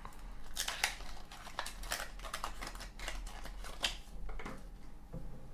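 Crackly rustling and small ticks of a sticker seal being peeled off and handled.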